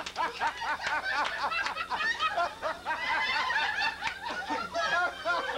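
A small group of people laughing and chuckling together, many overlapping short laughs.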